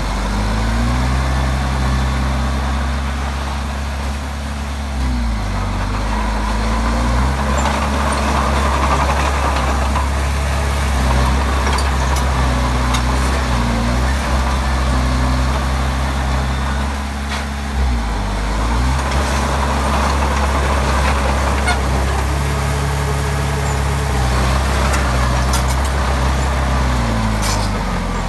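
Komatsu D20P bulldozer's diesel engine working under load, its pitch dipping and recovering three times as the load changes.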